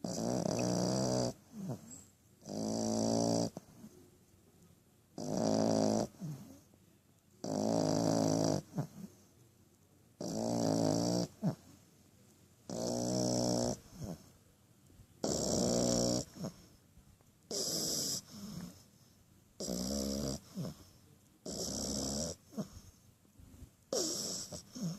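French bulldog puppy snoring in its sleep: regular rattly snores, each about a second long with a hiss above, roughly every two and a half seconds.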